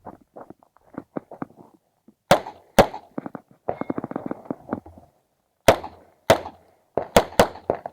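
Uzi Pro 9 mm pistol firing during an IPSC stage: sharp shots, mostly in pairs (two about 2 s in, two near 6 s, and a quick run of three near the end), with weaker knocks and clatter between them.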